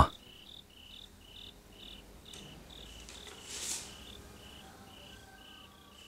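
Crickets chirping in a steady rhythm, about two short high chirps a second at two alternating pitches. A brief airy swish sounds a little past the middle.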